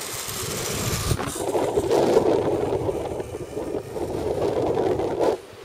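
Rushing noise of a fast zipline ride: wind across the microphone and the trolley's rollers running along the twin steel cables. The noise flutters steadily and drops away briefly near the end.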